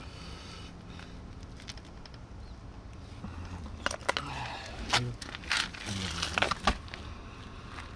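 Metal clicks and scrapes of a hand tool being fitted and worked on a car's wheel bolt, a cluster of sharp clicks in the second half, with a few low vocal sounds among them.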